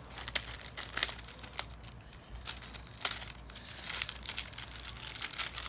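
Plastic packaging being handled and crinkled as items are taken out of a delivery package, with irregular sharp crackles; a couple of louder ones come about a second and three seconds in.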